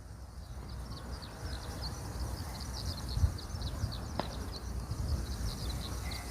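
A flock of small birds chirping rapidly and continuously over a steady low rumble, with one sharp click a little past the middle.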